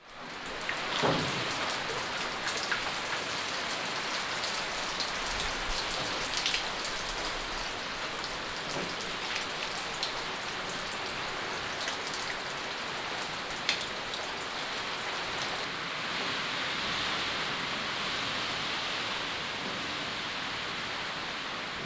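Steady rain falling, with scattered louder drops striking close by.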